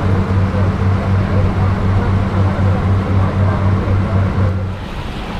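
Passenger ferry boat's engine running with a steady low drone over water and hull noise; the drone eases off and gets quieter near the end.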